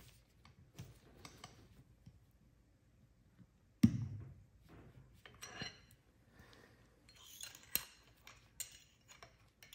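Small metal tool and piston parts handled on a workbench while a wrist-pin clip is fitted: scattered light ticks, one sharp metallic click about four seconds in, then irregular clinks and ticks.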